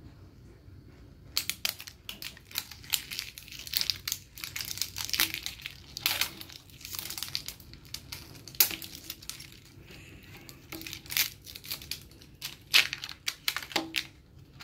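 The crinkly wrapper of an L.O.L. Surprise Confetti Pop ball being peeled and torn off by hand, crackling and crinkling in quick irregular bursts. It starts about a second and a half in, eases off briefly past the middle, then picks up again.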